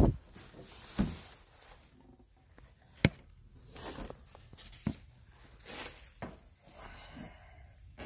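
Handling noise from a plastic pet water fountain being carried and moved about: a thud at the start and another about a second in, a sharp click about three seconds in, and scattered soft rustles and knocks.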